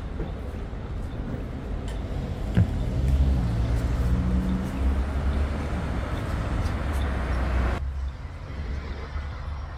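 Street traffic: a motor vehicle's engine hums close by over a constant low rumble, with a single knock about two and a half seconds in. The noise drops off abruptly near the end.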